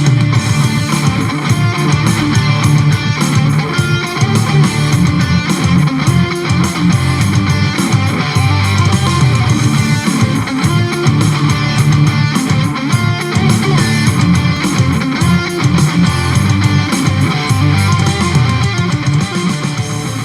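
Loud music led by electric guitar, with a strong bass line.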